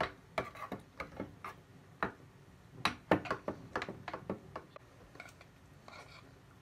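Metal spoon clinking and scraping against a stainless steel pot while stirring thick oatmeal, in quick irregular clicks that thin out near the end.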